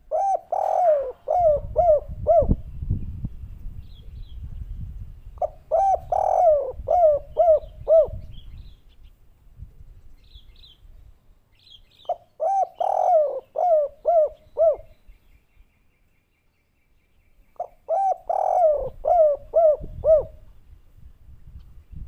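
Spotted dove cooing its 'kuk 3' song: four phrases, each a quick run of falling coo notes lasting about two and a half seconds, repeated roughly every six seconds.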